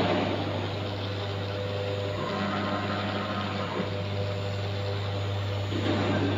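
Single-spindle CNC router running: a steady low hum under a hiss, with the machine's tones shifting for a while in the middle.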